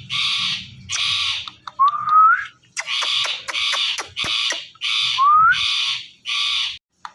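Indian ringneck parrot giving a string of about nine harsh, half-second screeches, with two short rising whistles among them.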